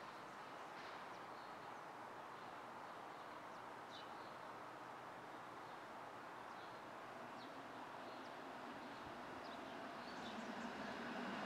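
Steady city street traffic with scattered bird chirps; from about halfway a streetcar approaches, its low rumble growing louder toward the end.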